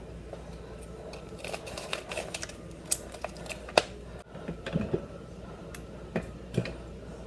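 Small packet of ganache mix being opened and handled: crinkly rustling with several sharp clicks and taps, the loudest a little under four seconds in.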